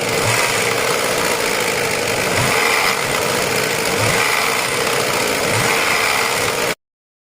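Ford Fiesta engine running with the annoying noise of a worn timing chain tensioner, a steady mechanical rattle, with a few low thuds, that cuts off suddenly near the end.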